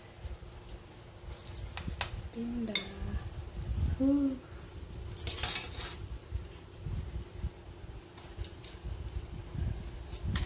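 A cooking utensil clinks and scrapes against a frying pan and a ceramic plate as pieces of pork rib are moved onto the plate. There are scattered sharp clicks and a longer scrape about five seconds in.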